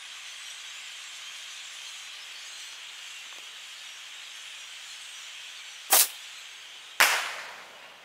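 Steady chatter of a large flock of birds roosting in the treetops, then two sharp firecracker bangs about a second apart, the second louder and echoing. After the bangs the flock's noise fades as the birds scatter.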